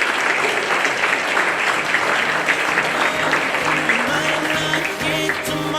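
A crowd applauding. Music with a pulsing bass beat comes in about two seconds in and grows louder over the clapping.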